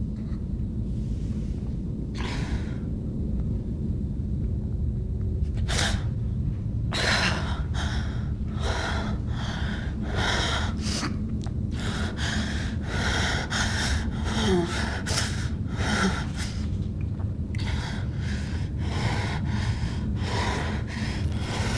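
A woman breathing heavily in quick, audible gasps, a few at first and then about two breaths a second, over a steady low drone.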